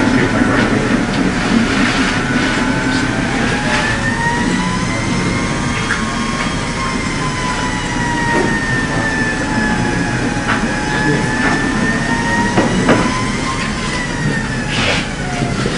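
A motor running steadily with a whine that slowly rises and falls in pitch, under heavy hiss and scattered clicks on a poor old recording.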